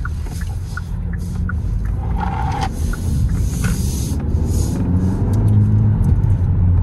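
Hyundai Elantra N Line's 1.6-litre turbocharged four-cylinder engine and exhaust accelerating in sport mode, heard from inside the cabin: a low rumble that grows steadily louder in the second half.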